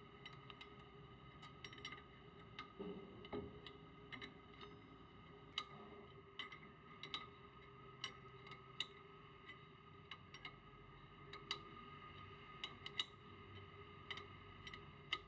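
Faint, irregular metallic clicks and taps of hand tools at the brake caliper while the caliper piston is pressed back with a piston press tool.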